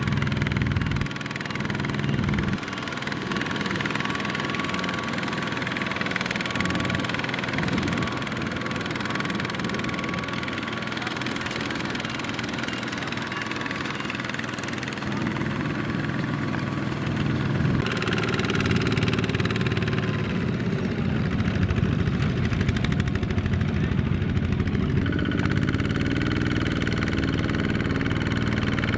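Single-cylinder diesel engine of a Kubota walking tractor running continuously. Its pitch and loudness shift abruptly a few times.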